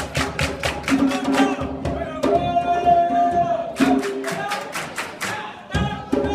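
Djembe hand drums played in a quick rhythm of sharp strikes, with a long steady held tone for about a second and a half in the middle. The drumming thins out, then comes back suddenly near the end.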